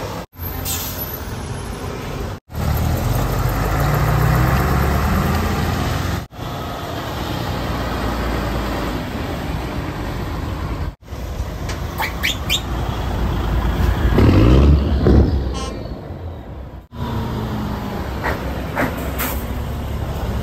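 Classic diesel trucks, among them a Volvo F10 and a Scania 142, driving past one after another, heard as a run of short clips that cut off abruptly. The engines run with a low, steady sound that swells as each truck comes close, loudest about four seconds in and again about two-thirds through.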